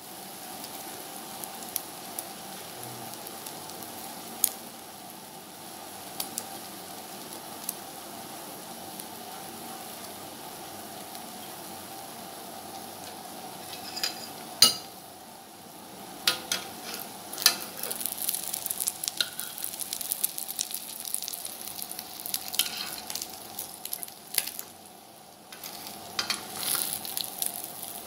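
Egg omelette frying in hot oil in a wok: a steady sizzle, with a few sharp pops early on that turn into busy crackling spatter through the second half.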